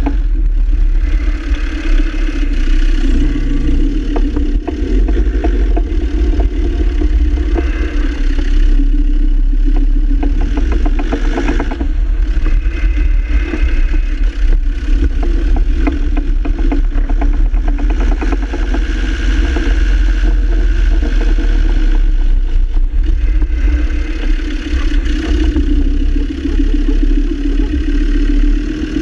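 Land Rover Defender TD5 five-cylinder diesel running steadily with a dense rattle underneath, the clatter of a worn double-cardan propshaft joint.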